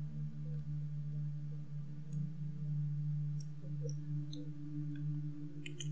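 Computer mouse clicking about six times at uneven intervals, over a steady low hum.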